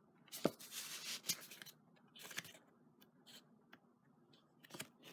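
Sheets of cardstock paper rustling and sliding as they are handled and flipped through, with a few light ticks and taps.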